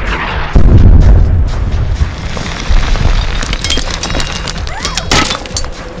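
Action-film battle soundtrack: a deep explosion rumble and a heavy boom about half a second in, over dramatic music. Sharp cracking impacts come around four and five seconds in, with a whirring mechanical glide near the end.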